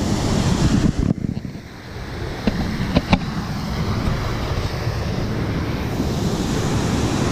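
Wind rumbling and buffeting the microphone, easing briefly a little after a second in, with a few sharp clicks around three seconds in.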